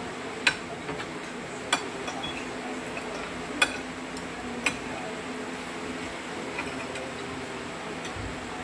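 Spoons and forks clinking against plates during a meal: four sharp clinks in the first five seconds, over a steady background hum.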